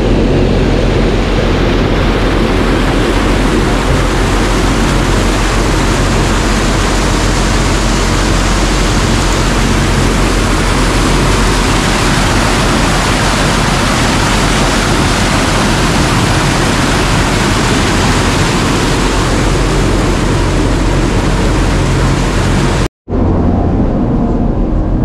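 Tour boat's engine running steadily under a loud, even rush of water and wind. After a brief cut near the end, the engine hum carries on with less rush.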